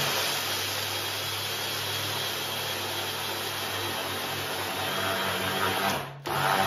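Electric food processor grinding blanched almonds, its motor running steadily under load; it stops about six seconds in and starts up again at once.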